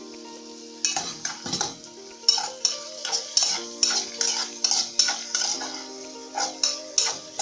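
A utensil scraping and stirring sliced parboiled potatoes with onion and garlic in a frying pan of oil, in repeated strokes about two a second starting about a second in, over the sizzle of the oil.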